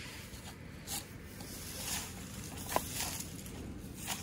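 Broom sweeping dry fallen leaves across a concrete pavement into a dustpan: a few short scraping swishes.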